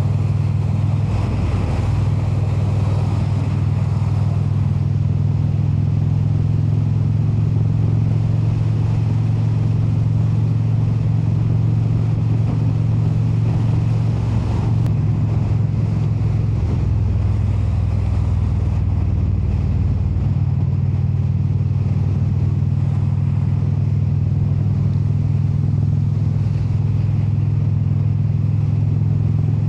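Indian Super Chief Limited V-twin with a Rush exhaust, running at a steady cruise while the bike is ridden. The engine drone is constant, with small changes in pitch around the middle as the throttle eases and picks up.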